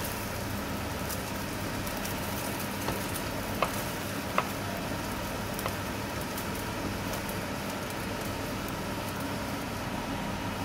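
Ham and cheese omelette sizzling steadily in a non-stick frying pan, with a few sharp clicks of a plastic spatula against the pan, the two loudest about 3.5 and 4.5 seconds in.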